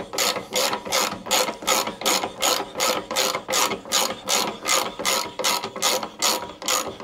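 Socket ratchet worked back and forth in quick short strokes, an even run of pawl clicking at about three bursts a second, spinning out a freed bolt from a mower's gearbox housing.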